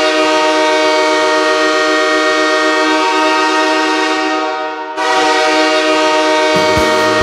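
Los Angeles Kings' goal horn sounding a loud, steady multi-note chord, dying away about four seconds in and sounding again a second later. Goal music starts up underneath it near the end.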